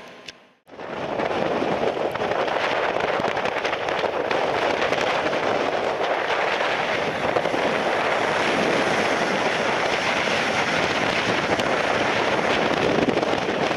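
DB class 111 electric locomotive hauling double-deck coaches on an electrified main line, passing at speed: a steady rushing noise of wheels on rail and air, starting about a second in after a brief silence.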